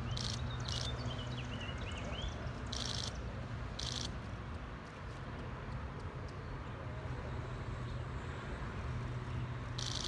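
Outdoor ambience: a steady low rumble of traffic with birds chirping near the start, and about six short high-pitched hisses.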